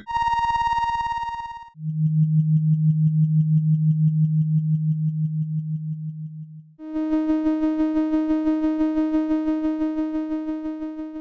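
Synthesized sci-fi sound effects played in succession: a short high electronic tone, then a low pulsing hum lasting about five seconds, then a mid-pitched pulsing tone with many overtones.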